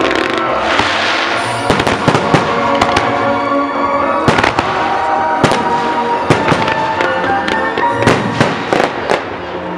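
Fireworks display: aerial shells bursting in a rapid run of sharp bangs, more frequent after the first couple of seconds, with a hissing crackle near the start. Music plays underneath throughout.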